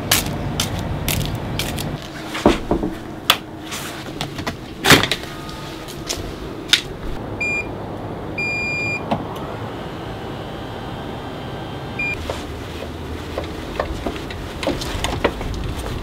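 A run of sharp clicks and knocks, with short high electronic beeps near the middle: two short, one held a little longer, and one more a few seconds later.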